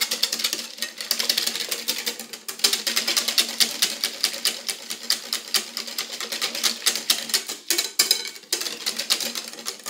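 Wire balloon whisk beating cake batter in a glass bowl: rapid, continuous clicking and scraping of the wires against the glass, with a few short pauses near the end.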